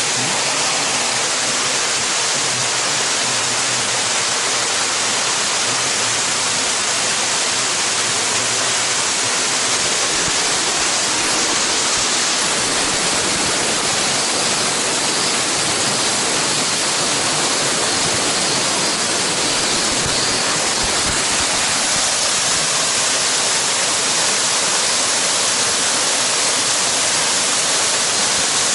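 Waterfall, the Chōon Falls, with water rushing and splashing in a steady, unbroken roar.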